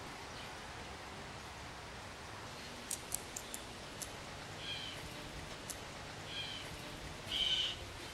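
A few sharp taps about three seconds in, fitting a blue jay's beak picking at peanuts and seeds on a wooden stump, then short blue jay calls, the longest and loudest near the end, over a steady faint outdoor hiss.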